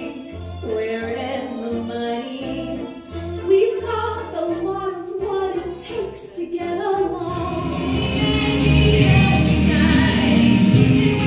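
A woman singing a slow melody over sparse low accompaniment; about eight seconds in it changes to a fuller, louder band backing with a woman singing over it.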